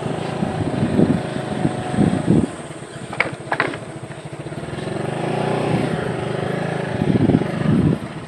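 Motorcycle engine running while the bike rides along slowly, its sound swelling and easing, with two short sharp clicks about three seconds in.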